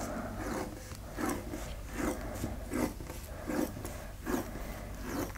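A narrow roll of tape being unrolled and pressed down along the plastic film over a diamond painting canvas: a series of soft, irregular rasping peels and rubs.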